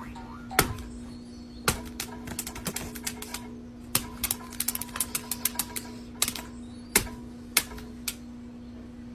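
Sharp clicks and taps at irregular intervals, coming in quick runs around the middle, over a steady low hum.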